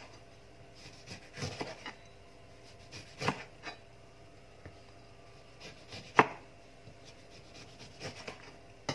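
Kitchen knife slicing a lemon into rounds, the blade knocking on the plastic cutting board in a few irregular strokes a second or two apart, the sharpest about six seconds in.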